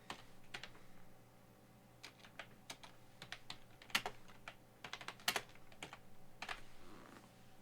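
Computer keyboard typing: irregular light key clicks, a few louder strokes among them.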